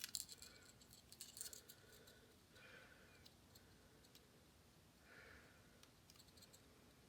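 Faint clicks and light tapping of small hand tools against the parts of an iPod Nano being taken apart, loudest at the start and again about a second and a half in.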